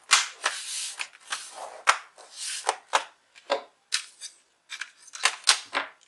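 Plastic bottom cover of a Lenovo V110-15ISK laptop being pressed down around its edges: an irregular series of sharp clicks as its clips snap into place, with short scrapes of plastic on plastic between them.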